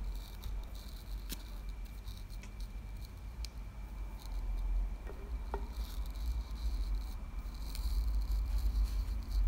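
Light handling and brushing sounds as a paintbrush dabs Mod Podge onto a painted mason jar lid, with a few small clicks and a dull low rumble of handling.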